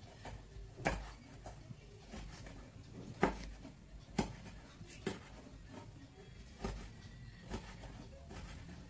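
Kitchen knife slicing red chillies on a wooden cutting board: the blade taps sharply on the board about eight times, at an uneven pace of roughly once a second.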